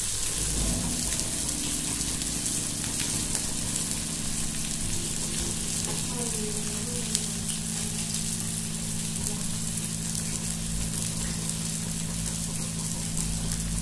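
Kingfish steaks sizzling steadily in oil on a flat tawa over a low flame, with a low steady hum underneath.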